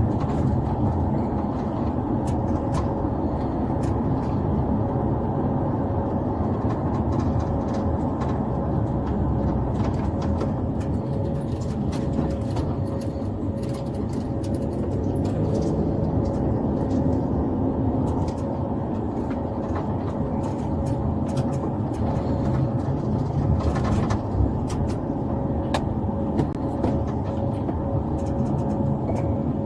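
Steady vehicle noise inside a police patrol car's cabin: a low rumble with a faint constant hum and scattered light clicks.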